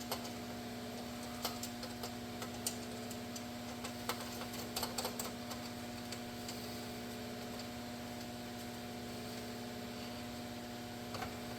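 Scattered light clicks and ticks of small parts and tools being handled during dash wiring work, over a steady electrical hum. The clicks cluster in the first half and come again twice near the end.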